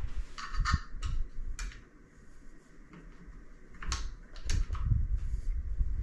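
Clicks and light knocks from an iOptron GEM28 equatorial mount and its refractor being handled and swung by hand to check balance, with low rumbling handling noise. A cluster of clicks comes in the first second and a half, then a lull, then more clicks and rumbling from about four seconds in.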